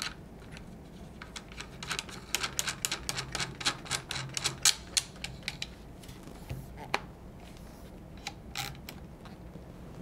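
Metal parts of a 12-gauge shotgun clicking and rattling as they are handled and fitted back together: a quick run of clicks for about three seconds, then a few scattered clicks.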